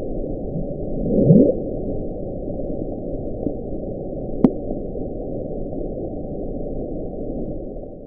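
The 'Bloop': a deep-sea hydrophone recording of an icequake, played sped up, heard as a steady low noise with a loud rising sweep about a second in and a shorter sharp crack about halfway through. It is consistent with large icebergs cracking and fracturing.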